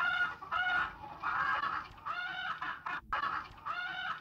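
Chickens clucking: a run of short, repeated calls, about two a second.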